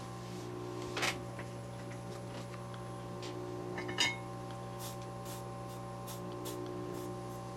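A steady electrical hum with a few even tones, and two small sharp clinks of tools on the workbench, about a second in and about four seconds in, with fainter ticks after.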